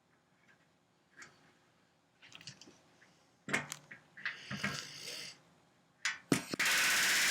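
Light clicks and handling of rivets and tools on the aluminium stabilizer skin, then near the end a pneumatic rivet gun starts hammering in a fast, steady rattle, setting a rivet.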